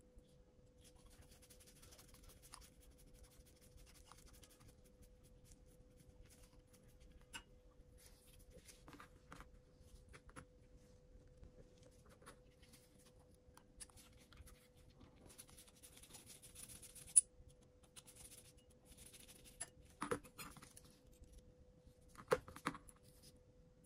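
Faint scratching and scraping of small hand tools working on DJI Mini 3 Pro gimbal parts, with scattered light clicks and a few sharper clicks in the last third, over a faint steady hum.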